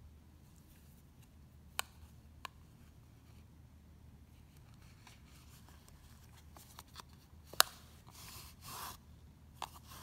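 Faint handling sounds of yarn being woven through a yarn warp strung on a CD: a few sharp clicks, the loudest about seven and a half seconds in, and soft rasping swishes of yarn pulled through near the end.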